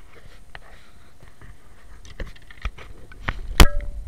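Handling knocks and bumps from movement in a small fishing boat. There are a few light knocks over the last two seconds, and the loudest is a sharp knock with a brief ring about three and a half seconds in.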